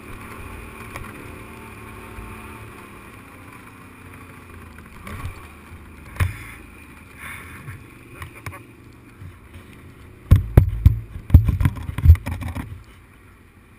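Engine of an off-road vehicle running steadily as it drives across a rough field, with scattered knocks. Near the end there are about two seconds of loud low thumps and jolts.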